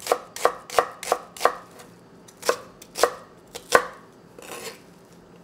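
Chef's knife chopping onion on a wooden cutting board: sharp knocks of the blade striking the board, about three a second for the first second and a half, then three more spaced farther apart, the last one the loudest.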